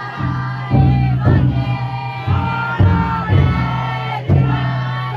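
Taiko drum inside a futon daiko float struck in slow, uneven beats, with a crowd of bearers singing a drawn-out chant in unison over it.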